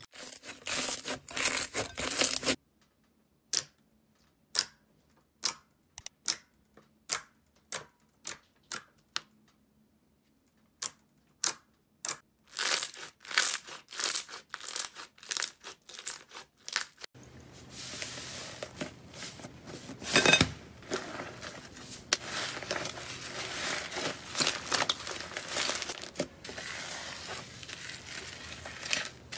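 Slime being worked by hand, stretched, squeezed and pressed, giving sticky crackling and popping. A dense crackle at first gives way to separate sharp pops, about two a second, that grow more frequent, and from a little past halfway there is steady crackling as thick slime is kneaded.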